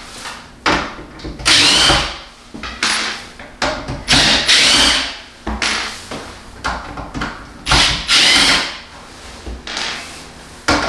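Small handheld drill unscrewing the fasteners of the ozone generator's top cover, its motor whirring up in a series of short bursts. The housing is being opened to reach the ozone cell plates for cleaning.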